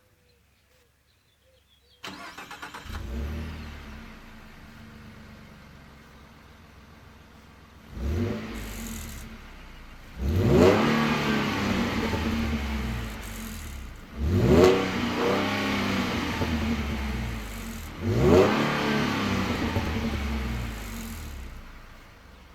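2013 Ford F-150's 3.7-litre V6 engine starting about two seconds in, idling, then revved four times, one short blip followed by three big revs about four seconds apart, each falling back to idle. After the revs comes the rattle that the owner hears every time he revs it and cannot trace.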